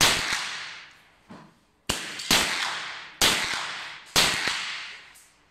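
Five suppressed rifle shots fired at an uneven pace, two of them in quick succession about two seconds in, each followed by a short fading echo.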